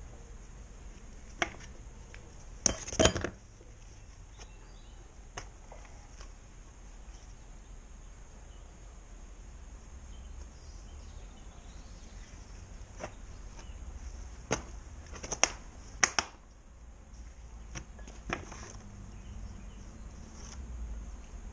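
Metal clinks and knocks from a crankcase-splitter puller and the aluminium engine cases of a Honda NSR 125 R as the engine is handled and turned upright on a bench. The clinks come singly and in short clusters, the loudest a few seconds in and another group around the middle to late part.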